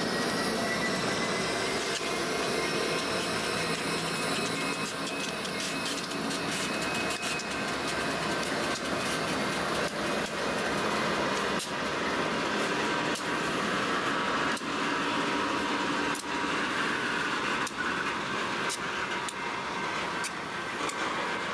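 Union Pacific diesel freight locomotives, GE C44-9W and EMD SD60M units, rolling slowly past at close range: a steady engine and cooling-fan drone with a faint high whine and scattered sharp clicks.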